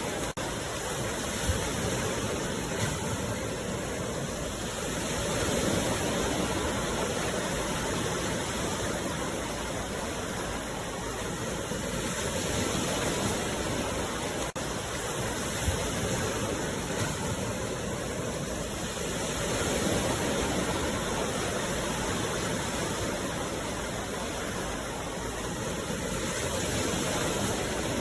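Sea waves washing onto the shore: a steady rush of surf that swells and eases about every seven seconds.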